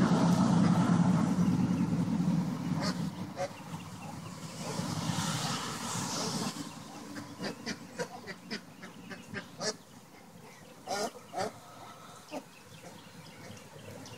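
Honeybees buzzing in flight around the entrance of a newly installed top-bar hive on orientation flights, loud for the first two or three seconds and then fading. Scattered short clicks and a few brief animal calls follow, the clearest a pair near the end.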